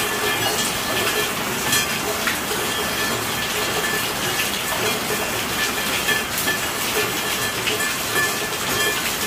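Steady rainfall: an even hiss with many individual drops ticking, some giving short ringing pings.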